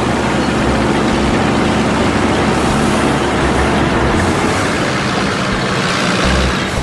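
Sound-effect heavy truck engines running steadily in a low, dense rumble.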